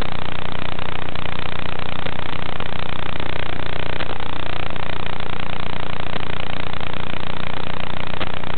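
Steady electronic hiss and low buzz on the audio channel of an analog FPV video receiver's recording. It stays the same while the quad sits disarmed in the grass, so it is radio noise, not the motors.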